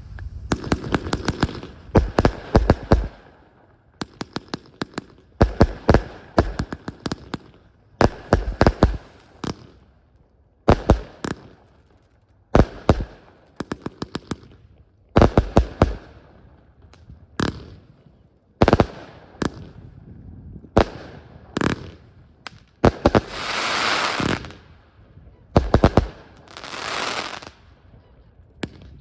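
Category F2 consumer fireworks going off: clusters of sharp bangs and crackles every second or two, with two longer hissing rushes near the end.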